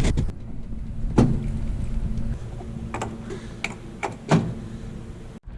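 A few separate clicks and knocks of handling and moving about around the car, over a faint low hum.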